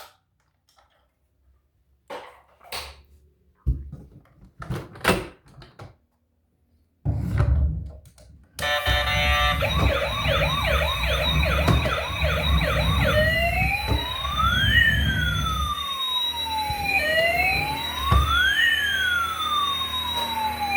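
A battery-powered toy emergency vehicle's electronic siren, after a few clicks and knocks. The siren starts as a fast warbling yelp and changes after a few seconds to slow rising and falling wails, over a low rumble.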